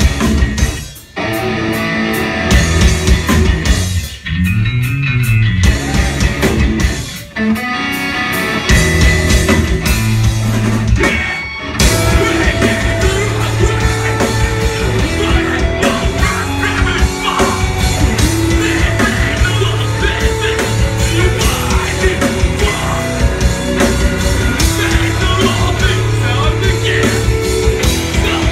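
Live metalcore band playing loud: distorted guitars, bass, drums and vocals. The first dozen seconds go stop-start, with short breaks between hits, and then the full band plays on without a break.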